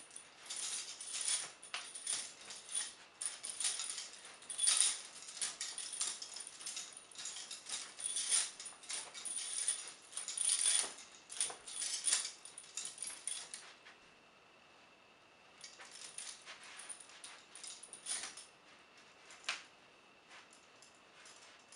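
Steel chains of heavy vintage prisoner shackles, handcuffs linked by a long chain to leg irons, clinking and jingling as the wearer moves and walks. The jingling is busy at first, stops briefly about two-thirds of the way in, then comes back as scattered clinks, with one last single clink near the end.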